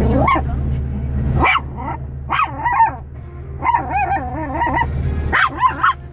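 Small dog yapping and whining at the car's windscreen wipers: a string of short, high calls with wavering pitch, over the steady low hum of the car.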